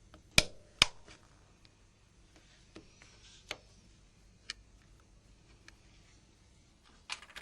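Sharp plastic clicks and taps of pry tools working the camera ornament off a Nokia 6600 phone's housing. Two loud clicks come in the first second, then a few fainter ticks spread out, and a pair more near the end.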